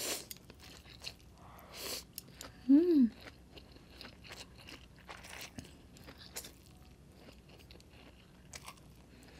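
Close-miked eating: thin fried egg noodles slurped up in bursts, then chewed with small wet clicks and smacks. A brief hummed voice sound rises and falls about three seconds in.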